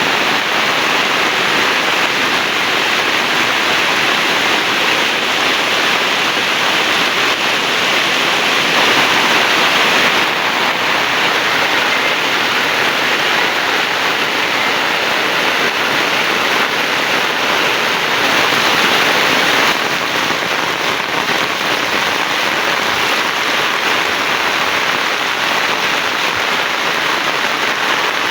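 Heavy rain falling steadily, a dense even hiss, slightly quieter from about twenty seconds in.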